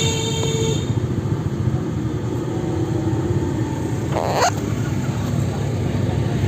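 Steady vehicle engine and traffic rumble, with a short pitched tone right at the start and a brief rising squeal about four seconds in.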